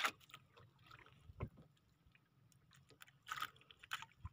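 A few short wet splashes and knocks around a small outrigger boat as a freshly caught largehead hairtail is handled on its line over the water. There is a louder one right at the start and a cluster near the end.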